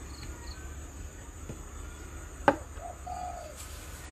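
Steady high-pitched insect drone, with a single sharp click about two and a half seconds in as a plastic chess piece is set down on the board.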